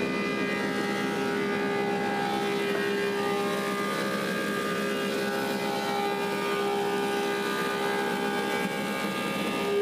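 Woodmaster 725 helical-head planer running together with its dust collector: a steady machine hum with a strong fixed tone, even throughout.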